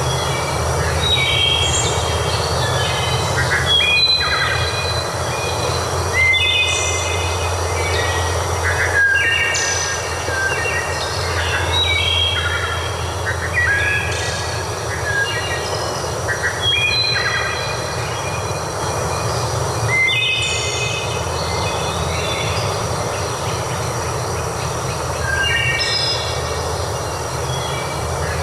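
Birds singing in short, clear phrases of stepped whistled notes, repeating throughout, over a steady rushing background.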